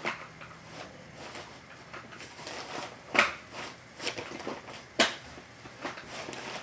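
Plastic clicks and knocks of a stroller's seat-back recline being raised by hand, with rustling of the seat fabric. There are two sharp clicks, about three and five seconds in.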